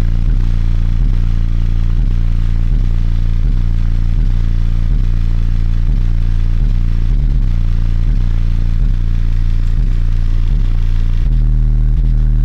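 Re Audio XXX Old School 12-inch subwoofer in a car trunk playing loud, deep bass notes at high cone excursion, the low tones switching pitch in steps about once a second.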